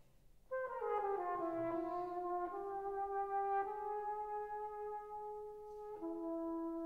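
Solo flugelhorn entering about half a second in with a note that bends downward, then playing a slow melody of long held notes alone, stepping down to a lower note near the end.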